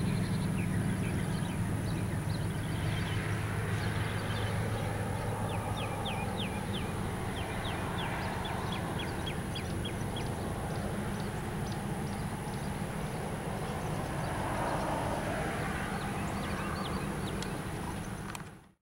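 Distant diesel locomotive running with a steady low drone as it creeps slowly along. Quick series of short bird chirps rides above it, and everything cuts off suddenly near the end.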